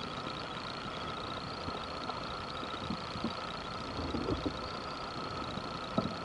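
A steady mechanical hum with a constant tone and a faint fast ticking, with a few soft knocks near the middle and near the end.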